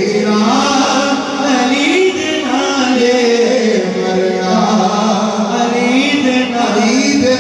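Male voices singing a manqabat (Sufi devotional song in praise of Ali) into microphones over a PA sound system, drawn out in long held, wavering notes.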